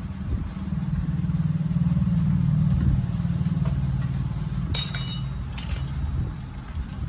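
A motor vehicle engine running steadily, swelling for a couple of seconds. About five seconds in, two sharp metallic clinks with a brief ring come from a spanner on the motorcycle's wheel axle nut.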